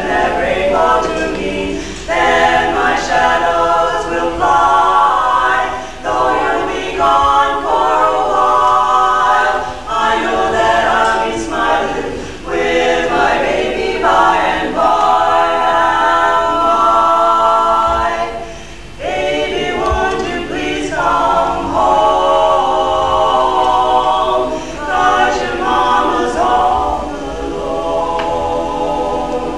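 Women's vocal group singing a cappella in harmony, phrase after phrase, with short breaks for breath between them, the longest a little past halfway.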